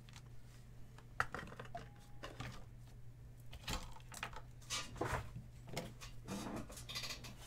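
Cardboard case being handled and opened by hand: scattered taps, scrapes and rustles, over a steady low hum.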